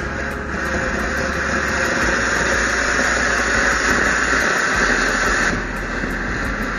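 Ground fountain firework spraying sparks with a loud, steady rushing hiss that drops off sharply about five and a half seconds in, then continues more weakly.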